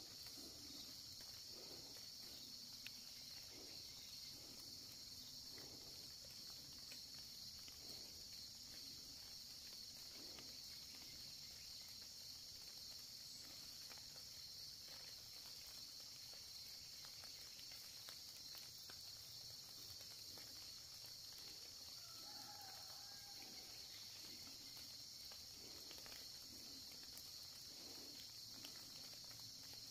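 Steady chorus of crickets and other insects, with faint soft rustles and a brief faint call about three quarters of the way through.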